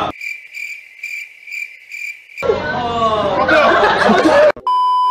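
Crickets-chirping sound effect, a regular high chirp about three times a second, over near silence for the first two seconds. Then a voice laughing, and near the end a steady beep tone starts.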